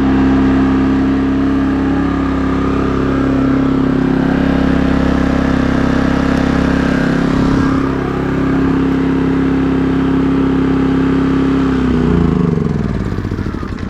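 WEN DF360iX inverter generator running on propane, its single-cylinder engine holding a steady speed, then winding down as it is shut off near the end.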